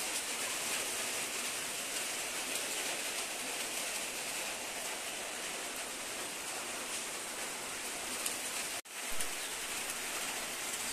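Steady rain falling: a dense, even hiss that starts abruptly and is broken for an instant about nine seconds in.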